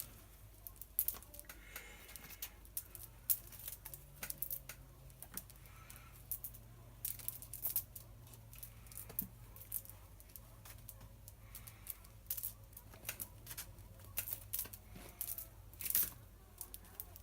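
Loop of new chainsaw chain being handled and untangled, its links rattling and clinking in irregular light metallic clicks.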